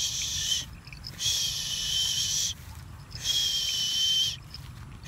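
Harris's hawk screaming: harsh, drawn-out calls about a second long each, repeated three times with short pauses between.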